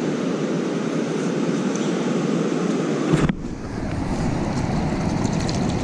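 Ocean surf washing steadily, with wind on the microphone. A sharp click comes a little over three seconds in, after which the low rumble of the surf is stronger.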